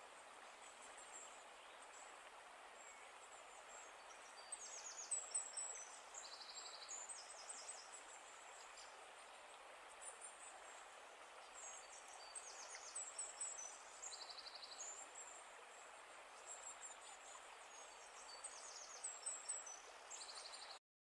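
Faint outdoor ambience: a steady hiss with small birds chirping in short, high trills every few seconds, cutting off suddenly near the end.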